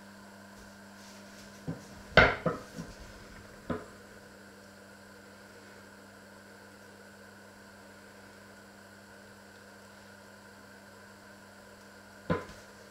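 A steady electrical hum runs under a few sharp knocks and clatters of kitchen things being handled: a short cluster about two seconds in, the loudest, another knock a second or so later, and one more near the end.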